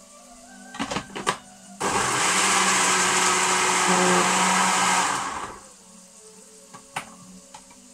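Small electric blender blitzing a green chilli and water mix: a few clicks as the jar is pressed onto its base, then the motor runs loud and steady for about three and a half seconds and winds down. A single click follows near the end.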